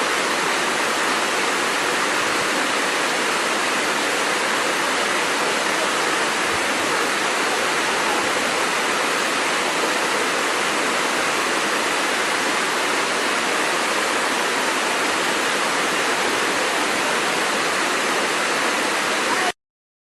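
Waterfall, a steady, even rush of falling water that cuts off suddenly near the end.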